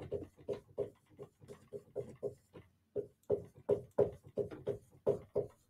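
Dry-erase marker writing on a whiteboard: a quick series of short strokes, about three to four a second, pausing briefly a little before the middle.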